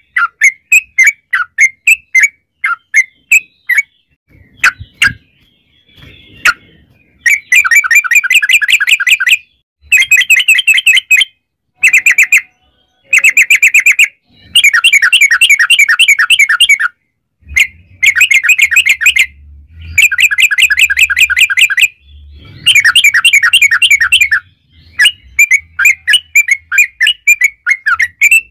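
Yellow-vented bulbul (trucukan) singing: separate chirpy notes at first, then a run of long, rapid rolling trills of one to two seconds each with short breaks between them, then back to separate chirps near the end.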